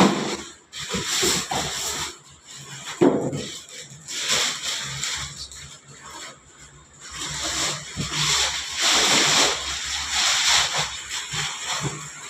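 Rustling and scraping of packaging being handled during the unboxing, coming in irregular bursts.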